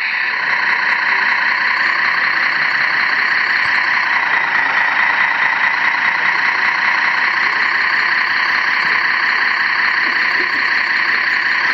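Radio-controlled model truck's engine sound running steadily at an idle-like pace, thin and high with little bass.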